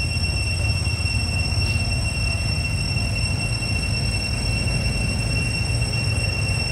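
Steady low rumble of wind on the microphone, with a thin, steady high-pitched whine over it; no monkey calls.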